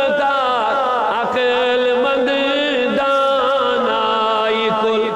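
A man's solo voice singing a naat, drawing out long, ornamented melismatic notes that waver and bend in pitch without a break.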